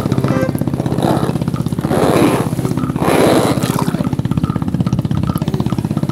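A toy monster-truck ambulance splashing into a tub of water, in a few splashes about one, two and three seconds in. Under them runs a steady, rapidly pulsing, engine-like buzz.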